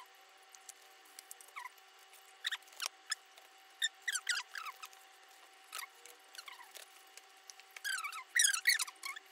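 Short, high squeaky chirps that come in scattered clusters, thicker near the end, over a faint steady hum.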